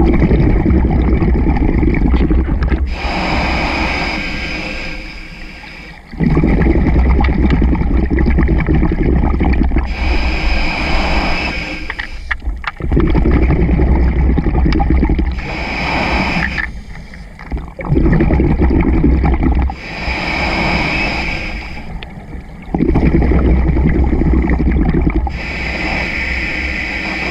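Scuba diver breathing through a regulator underwater: a hiss on each inhale, then a long rush of exhaled bubbles lasting about three seconds. About five breaths, one every five to six seconds.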